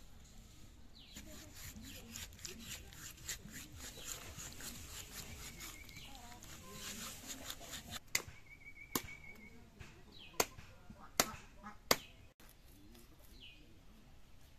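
Fish being worked on an upright boti blade: a quick run of scraping strokes, about five a second, as the scales are scraped off, then five sharp cuts about a second apart as the fish is cut on the blade.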